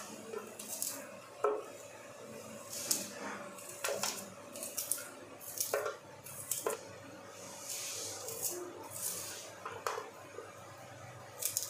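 A knife chopping an onion held in the hand into small pieces over a plate, giving irregular clicks of the blade and short scrapes as the bits fall onto the plate.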